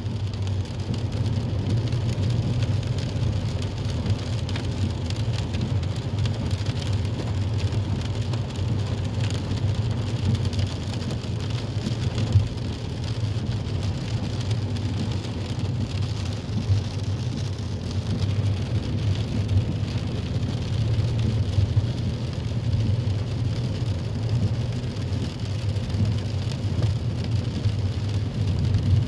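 Steady cabin noise of a car driving in rain: a low road and engine rumble with the hiss of tyres on a wet road and rain on the windscreen.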